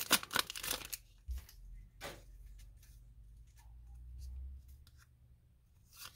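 Foil Pokémon booster pack wrapper crinkling as the cards are slid out, for about the first second, then only faint scattered rustles and taps of the cards being handled.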